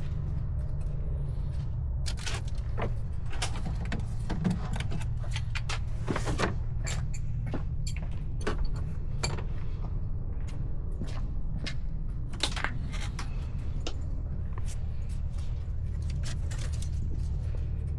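Scattered sharp metallic clicks and clinks of hand tools and fasteners being worked, over a steady low hum.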